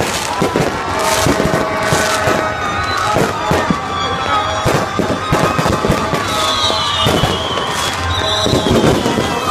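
Aerial fireworks going off in a dense, continuous run of bangs and crackles, with high whistling glides near the end.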